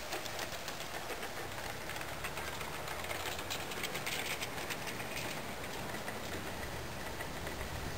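G-scale model freight cars rolling past on garden-railway track: a steady rolling rumble with quick light wheel clicks, busiest around the middle.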